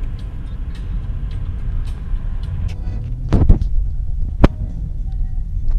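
Car driving, heard from inside the cabin: a steady low road and engine rumble, with a few sharp knocks a little over halfway through.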